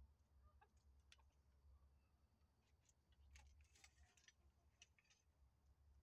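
Near silence: a faint low hum with scattered soft clicks and ticks, a few more of them together around the middle.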